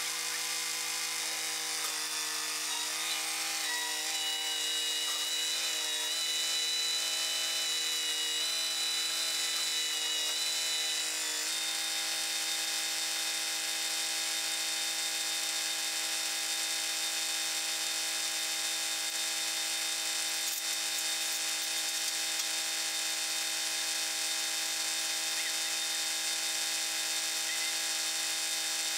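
Kubota tractor's diesel engine running steadily while its loader works, its pitch shifting slightly several times over the first ten seconds or so, then holding even.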